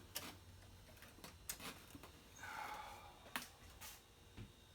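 A few faint, sharp clicks and light taps of metal parts being handled by hand on an engine, with a short scrape about two and a half seconds in.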